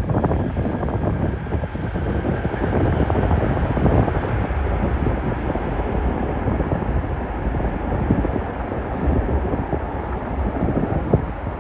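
Wind buffeting the microphone in gusts over the steady rumble of a jet airliner's engines, with a faint whine held underneath.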